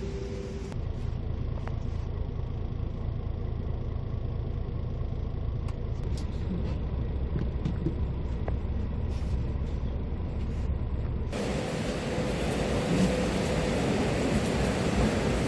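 Steady low engine and road rumble inside a moving shuttle bus. About eleven seconds in it cuts abruptly to a louder, even hiss.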